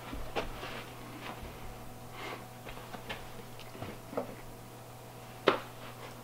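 Light clicks and knocks of a DJI Osmo extension arm and mini tripod being handled and adjusted, with one sharper click about five and a half seconds in.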